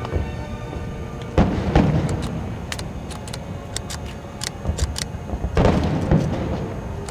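Fireworks bursting: two loud booms, about a second and a half in and again about five and a half seconds in, each trailing off in a crackling rumble, with sharp pops and crackles scattered throughout.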